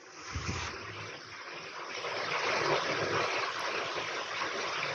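Electric room fan running: a steady rushing hiss of moving air that swells a little over the first two seconds, then holds even.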